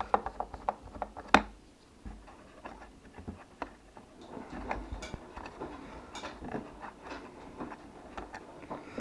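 Small clicks, ticks and taps from handling the speaker's plastic back cover over the battery as it is worked off, with one sharper click about a second and a half in.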